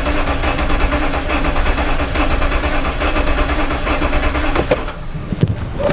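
BMW N63 V8 being cranked over by its starter without firing, its ignition coils disconnected for a compression test. The cranking runs steadily and stops about five seconds in.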